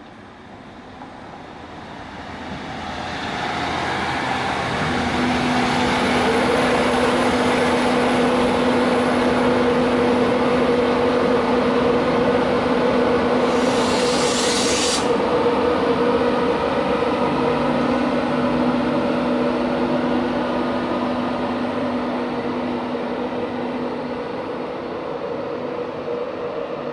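LNER Class 91 electric locomotive powering away from a standstill with its train. The sound builds over the first few seconds into a loud, steady hum with a two-note whine, then eases slightly near the end. A short hiss comes about halfway through.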